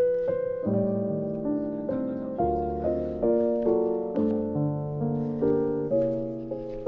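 Background piano music: notes and chords struck about twice a second, each fading away before the next.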